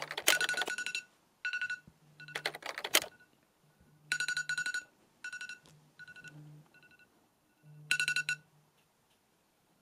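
Electronic typewriter-style text sound effect: bursts of rapid, beeping clicks that start and stop in irregular groups as characters type onto the screen, about eight bursts, fading out near the end.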